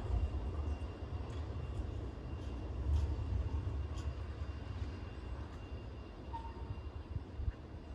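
Tram running on its rails: a low rumble with faint clicks that slowly fades.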